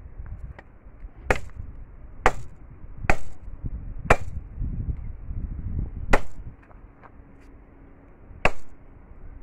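Machete chopping a felled eucalyptus pole, blade biting into the wood. There are six sharp strikes: four about a second apart, then two more with longer gaps.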